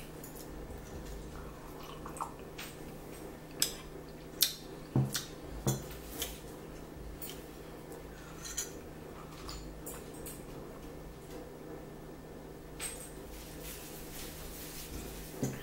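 A metal spoon clinking against a ceramic tea mug: a dozen or so separate sharp clinks at uneven intervals, over a faint steady hum.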